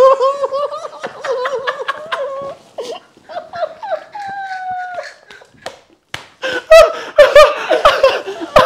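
Men laughing hard, one of them with his mouth crammed full of Playmais craft pieces. Wavering, high laughter gives way to loud, short bursts of laughter near the end.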